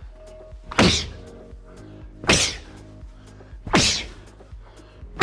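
Forearm and shoulder smashes landing on a BOB training dummy in a clinch drill: four heavy hits about a second and a half apart, each with a short trailing rush, over background music.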